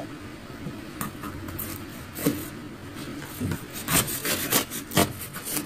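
Kitchen knife cutting and scraping through the packing tape and cardboard of a shipping box, a rough rasping sound in short strokes, which come quicker and louder in the second half.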